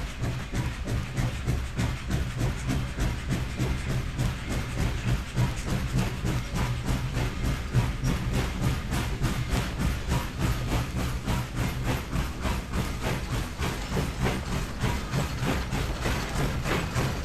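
Steam locomotive running, its exhaust chuffing in an even, fast rhythm of about four beats a second over a steady low rumble.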